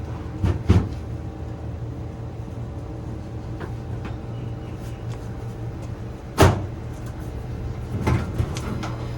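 Fujitsu ducted air conditioner's outdoor unit running with a steady hum from its compressor and fans. A few sharp knocks cut through it: two close together about half a second in, a loud one about six and a half seconds in, and another couple around eight seconds.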